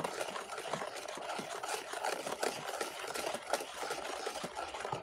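Wire whisk beating a wet batter in a mixing bowl: a fast, steady run of small clicks and scraping as the wires strike the bowl.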